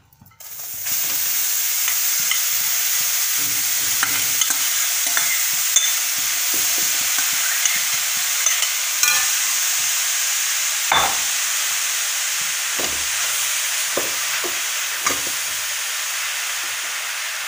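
Grated carrots sizzling steadily in a hot metal kadhai as their water cooks off, the hiss setting in about a second in. A spatula stirs and scrapes against the pan, with scattered clicks and a few louder scrapes in the second half.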